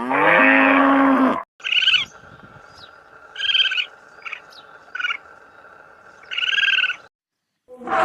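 The end of a cow's moo, then a break. After it, a gull gives a series of short, high calls, about six in all, the last one longest, over a faint steady background.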